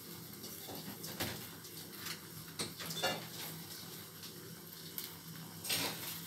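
Pot of water boiling on a gas stove under a layer of fresh moringa leaves: a steady hiss and bubbling, with a few louder pops and crackles.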